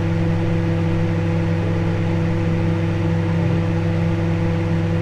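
A household appliance motor running with a steady, even hum and whir that does not change.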